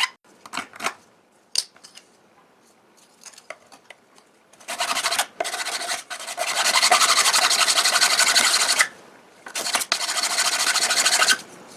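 Hand file rasping along the cut edge of an FR4 epoxy-fiberglass board: a few separate strokes, a couple of quiet seconds, then about four seconds of quick continuous filing, a short pause, and another run of filing.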